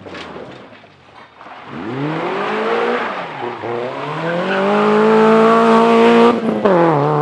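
Renault Clio rally car's engine revving hard as the car accelerates out of a corner and past at close range. The pitch climbs, dips briefly about three and a half seconds in, then climbs again to its loudest. Near the end a quick upshift makes a sharp break before the engine pulls on.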